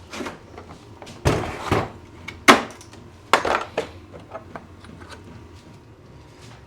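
Several knocks and clunks of tools being handled on a workbench, the loudest about two and a half seconds in, followed by a few light clicks.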